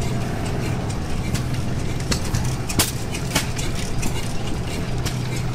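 Small 1920s single-cylinder hit-and-miss gas engine running, giving a few sharp pops at uneven intervals over a steady low engine drone.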